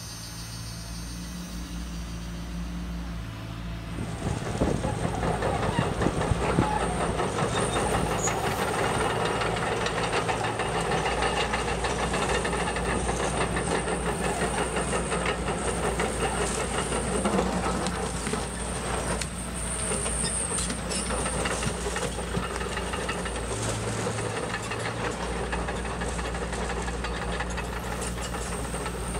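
Electric motor of a radio-controlled 1/16-scale toy truck running with a steady hum. About four seconds in it is joined by a loud, continuous rattle from the drivetrain and wheels as the truck drives.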